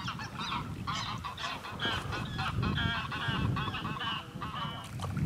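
Geese honking in flight: a rapid, continuous run of short calls from a pair of birds flying over the water.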